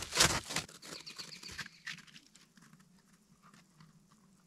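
A dog's paws scrabbling and crunching over a frost-covered log and dry brush close to the microphone. The sound is loudest in the first second, then lighter steps fade out about two seconds in.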